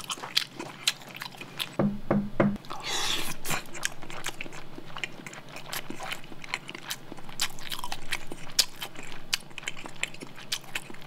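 A person chewing soft tofu close to the microphone: a run of small wet mouth clicks and smacks.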